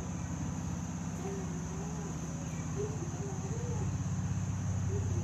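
Steady high-pitched insect chirring over a low, pulsing hum that grows louder toward the end.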